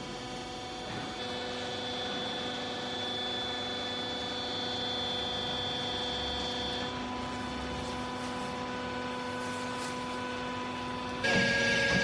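The hydraulic power unit of a vertical clothing baler, an electric motor and pump, running with a steady hum and a higher whine while the press cylinders move. The whine changes about a second in and again near the middle, and the machine gets louder with a new tone just before the end, as the pump takes on load.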